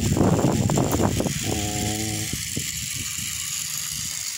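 Small battery-powered electric motor of a homemade miniature hand tractor running and rattling its drive as it moves, loudest in the first second and a half, followed by a short steady hum and a few light clicks.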